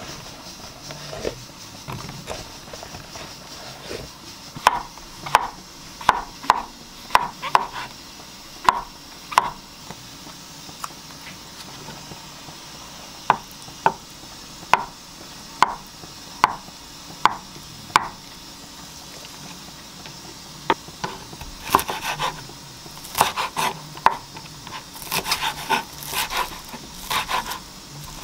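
Chef's knife cutting king oyster mushrooms, tofu and wild chives on a wooden cutting board: a run of evenly spaced single chops, about one and a half a second, then quicker bursts of chopping from about two-thirds of the way in.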